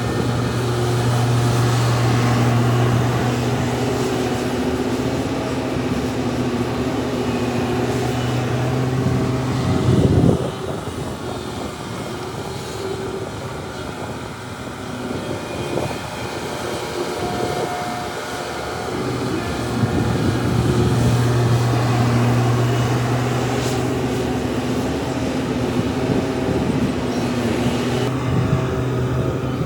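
Heavy diesel earthmoving machinery (excavator and dump trucks) running, with a steady engine drone that fades into rougher, noisier machine sound and then returns. A loud thud about ten seconds in.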